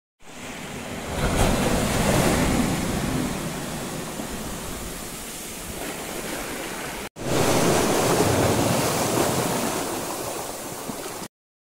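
Ocean surf washing in over a sandy shore and breaking against rocks, swelling and ebbing, with wind on the microphone. It cuts out for an instant about seven seconds in, then the surf sound resumes.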